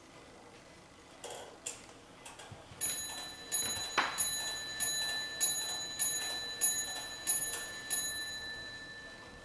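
Steam-hammer mantel clock from about 1880 striking nine times, after a few light clicks of its movement. The strokes come about 0.6 s apart, each ringing on, and the ringing fades slowly after the last one.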